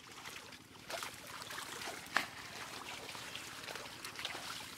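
Hands digging and groping through wet mud and shallow water among water hyacinth, giving irregular squelches and small splashes, with one sharper, louder one about two seconds in.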